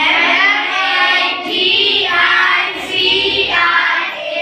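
A group of children chanting in unison in a sing-song rhythm, reciting English spellings aloud from memory.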